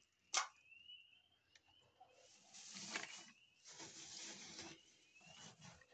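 Soft rustling of straw nesting material in a wooden nest box, in two bursts of about a second each and a shorter one near the end, after a sharp knock about half a second in. Faint short chirps recur in the background.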